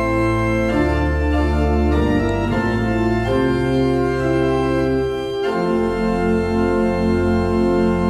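Church pipe organ playing the postlude after the blessing: full sustained chords over a deep pedal bass, changing every second or so, with a clear change of chord about five and a half seconds in.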